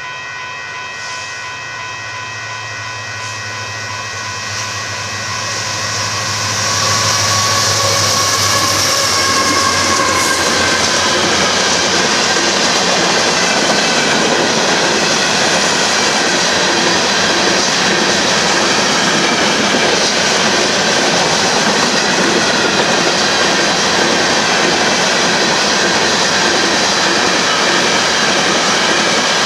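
Union Pacific freight train passing: the diesel locomotives approach, growing louder over the first seven seconds or so, and go by. Then a long string of covered hopper cars rolls past with steady wheel-on-rail noise and a regular clickety-clack.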